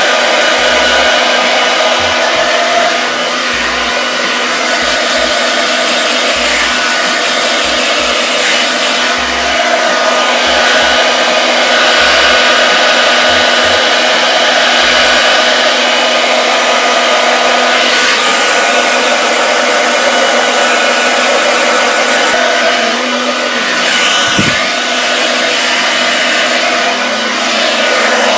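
Handheld hair dryer blowing on wet hair: a loud, steady rush of air over a motor whine, its level shifting slightly as the dryer is moved around the head.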